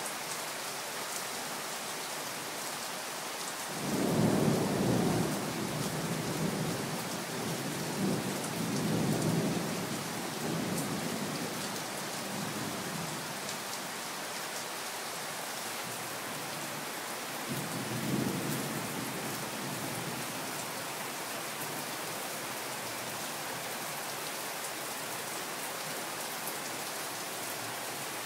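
Heavy rain pouring down steadily, with thunder rumbling about four seconds in and rolling on for several seconds, and a shorter rumble of thunder a little past the middle.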